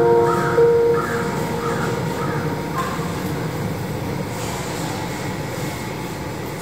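Sustained musical notes end about a second in, leaving a steady low rumbling noise that slowly fades.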